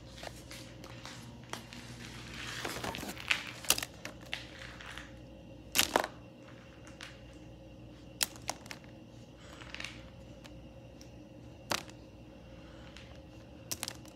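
Small plastic toy animal figures being rummaged through by hand: scattered sharp clacks as they knock together, with a stretch of rustling a few seconds in.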